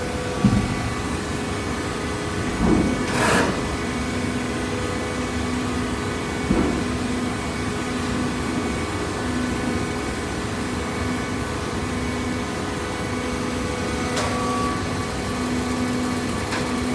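Hydraulic cardboard baler running: a steady motor-and-pump hum, with a few knocks, the loudest about half a second in and around three seconds in.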